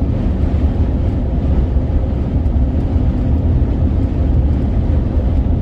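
Steady low rumble of road and wind noise inside a moving vehicle's cabin, driving through a dust storm.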